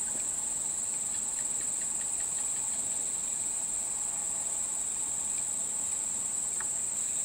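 Steady, high-pitched chorus of insects buzzing without a break, with a few faint ticks.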